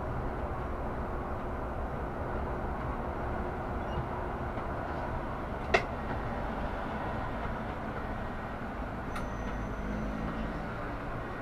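Solaris Urbino 18 articulated city bus running with a steady rumble of engine and road noise. A single sharp knock or click about halfway through is the loudest sound, and a fainter click follows a few seconds later.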